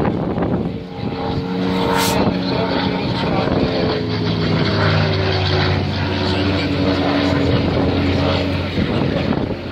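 Single-engine piston propeller aircraft flying a display pass, its engine drone slowly falling in pitch as it goes by. A brief click about two seconds in.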